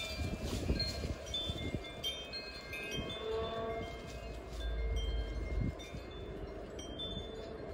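Wind chimes ringing, scattered clear tones at several pitches, over a low rumble of wind on the microphone that swells about halfway through.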